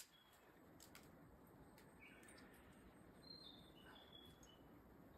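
Near silence: faint outdoor ambience with a few short, high bird chirps in the middle and a few soft clicks near the start.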